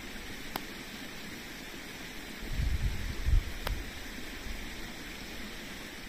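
Steady outdoor hiss, with a gust of wind buffeting the microphone for about a second midway through as a low rumble, and two faint clicks.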